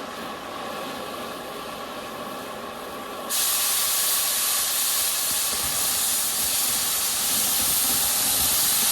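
Oxy-fuel cutting torch cutting steel: a steady hiss of the preheat flame, then about three seconds in a sudden, much louder high hiss as the cutting-oxygen jet blows through the metal and holds steady.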